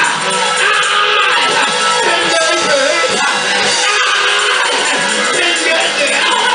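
Loud live gospel praise music, with voices singing and shouting over the instruments.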